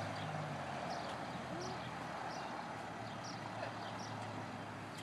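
BMW 650i convertible's V8 engine running low and steady as the car creeps at walking pace, under a steady outdoor hiss, with birds chirping briefly about once a second.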